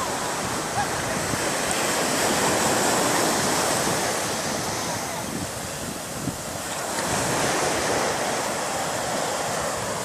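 Ocean surf washing up a sandy beach, swelling twice as waves break and run up the shore, then easing back.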